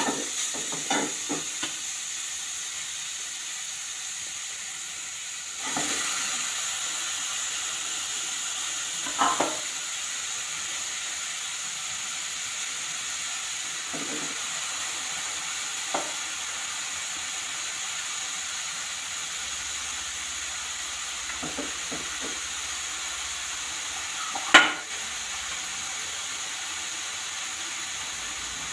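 Grated carrots sizzling as they fry in ghee in a pan, a steady hiss throughout. A steel slotted spoon knocks against the pan now and then, with one sharper knock near the end.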